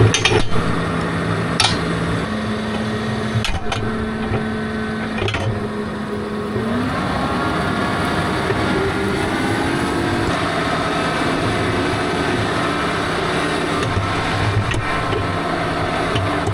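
Tractor engine running steadily, its speed stepping up about two seconds in and climbing again around six seconds in, with a few sharp knocks in the first seconds.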